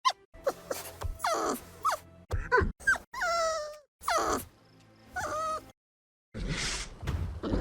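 Puppy-like monster creature sound effect: a run of short whimpers and yelps, each falling in pitch, then a brief pause and a breathy hiss near the end.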